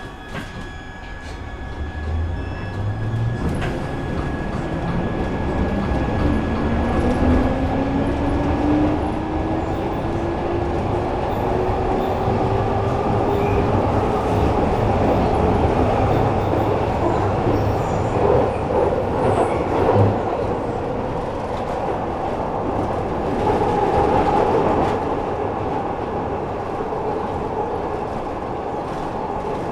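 Glasgow Subway train accelerating through the tunnel. A motor whine rises steadily in pitch under the growing rumble of wheels on rails, then the train runs on at speed with louder clattering spells.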